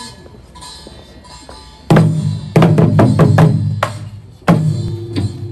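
Korean buk barrel drums struck with sticks in a Jindo bukchum drum dance. After about two seconds of quiet, the drumming starts with a loud stroke, then a quick run of strokes, then another loud stroke about four and a half seconds in, each with a deep booming ring.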